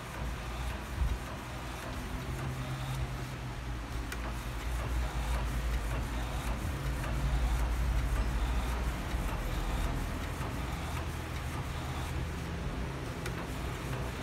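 Epson L1300 inkjet printer running a print job: a steady mechanical hum with faint ticks as the print mechanism works and the sticker sheet advances, a little louder about halfway through.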